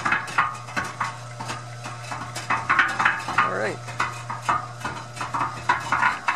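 Montgomery Ward cement mixer running empty on its new half-horsepower Marathon electric motor. A steady motor hum sits under constant, irregular rattling and clanking from the turning drum and its drive. The motor has a little vibration, which the owner takes to be normal.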